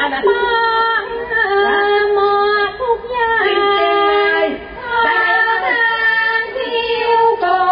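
A woman's voice singing a slow Thai classical melody in long, held notes that slide between pitches, with two brief breaks for breath midway.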